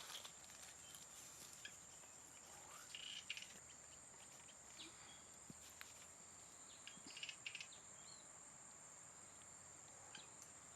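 Faint, steady high-pitched drone of insects, with a few brief rustles and clicks of movement through leaf litter about three and seven seconds in.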